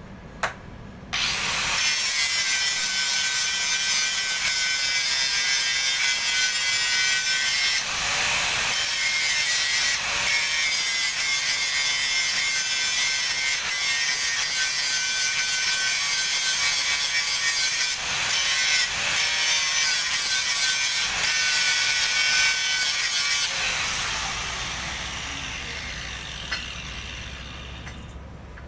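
Angle grinder starting up about a second in and running with its disc against steel plate: a harsh grinding noise with a steady high whine, easing off briefly several times as the disc lifts. Near the end it is switched off and winds down over a few seconds.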